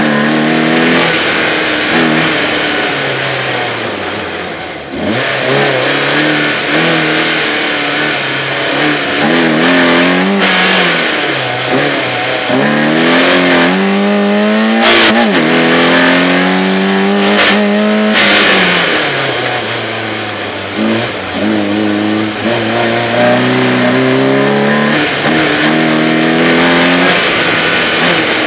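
BMW 318is four-cylinder engine driven hard, revving up and dropping back again and again as the throttle is worked and gears are changed. A few sharp knocks come around the middle.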